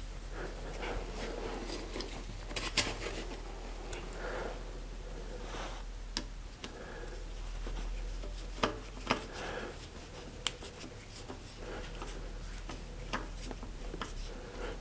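Hands adjusting a bicycle saddle on its seat post and working the saddle clamp: faint rubbing and handling noise with a few sharp clicks, the loudest about three seconds in and again around nine and ten seconds in.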